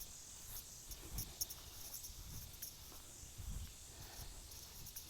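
Insects chirping in a steady, faint, high-pitched chorus of short repeated pulses, with a few soft low thumps.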